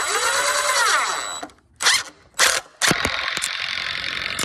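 Cordless drill running under load: a run of about a second and a half whose motor pitch rises and falls, two short bursts, then a longer steady run from about three seconds in.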